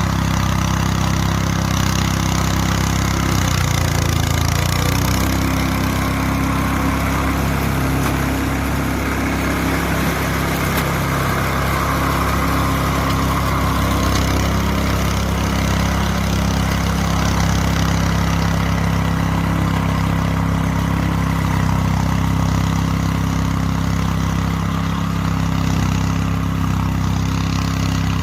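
Small engine of a home-built remote-controlled grass mower running steadily, with a brief change in pitch about four seconds in.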